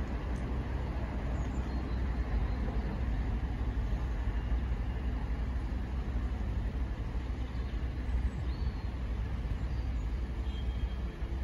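Steady low rumble of background railway and road noise. A faint steady hum comes in near the end.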